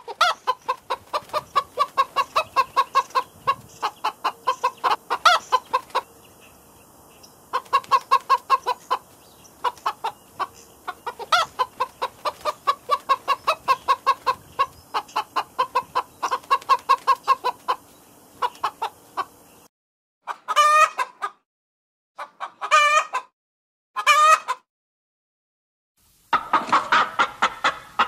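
Chickens clucking in rapid runs of short, evenly repeated clucks. About twenty seconds in the clucking stops, and three separate, longer drawn-out calls with a wavering pitch come between stretches of silence. Clucking starts again near the end.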